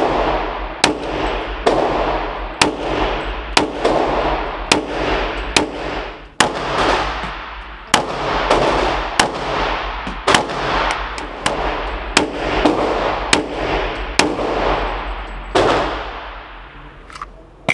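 A string of handgun shots from a semi-automatic pistol, fired one to two a second at an uneven pace, about twenty in all. Each shot echoes and dies away slowly in an indoor shooting range.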